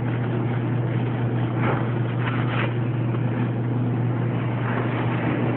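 A steady low hum with a constant hiss, with a few faint scrapes about two seconds in.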